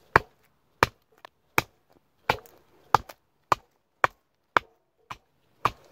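J. Adams survival knife chopping into a dead branch laid across a log: about ten sharp chops at a steady pace, roughly one every half second or so.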